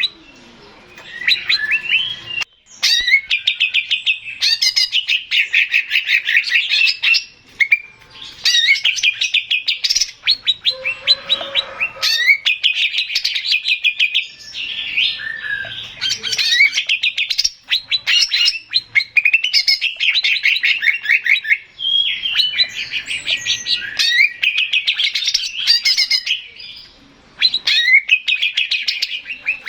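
Male greater green leafbird (cucak ijo) singing: loud phrases of rapid trilled and chattering notes, each lasting a few seconds, with brief pauses between them.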